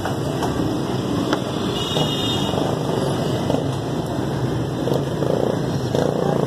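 Steady road traffic noise, with a few faint clicks.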